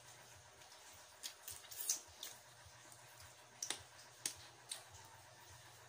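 Eating sounds from people chewing and sucking cooked seafood picked up by hand: faint wet mouth clicks and lip smacks in two short clusters.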